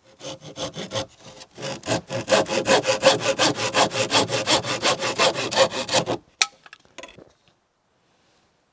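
Hand saw cutting through a thin wooden canoe rib: quick back-and-forth strokes, slower at first, then steady at about five strokes a second. The sawing stops about six seconds in, followed by a single light knock.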